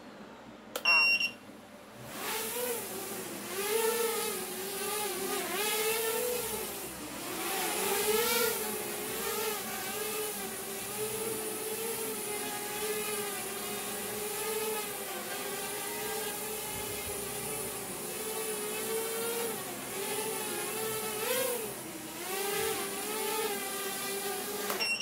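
3-inch toothpick FPV quadcopter with 1104 4200 kV brushless motors and HQProp 3020 propellers in flight: a buzzing whine whose pitch wavers up and down as the throttle changes, with a thin high tone above it. Short electronic beeps about a second in, before the motors spin up, and again at the very end.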